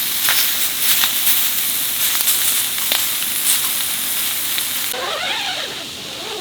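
Marinated eel sizzling and crackling on a hot grill, a dense hiss with scattered pops. About five seconds in the hiss drops sharply, and a short wavering pitched sound follows near the end.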